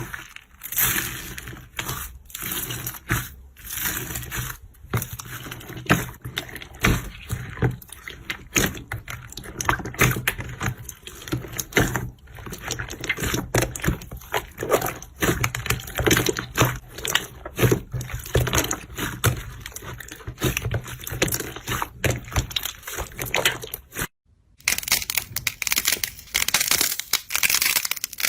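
Hands squeezing and pressing slime: a continuous run of irregular wet squelches, pops and crackles, broken by a brief silence about 24 seconds in before it resumes.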